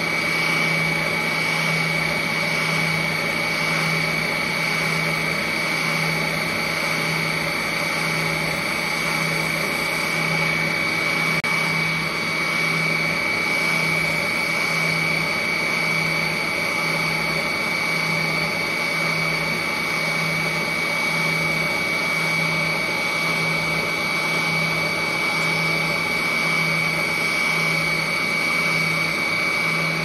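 Benchtop spindle sander running steadily as a pine block is sanded against its drum: a motor hum with a constant high whine and a low throb that pulses about once a second.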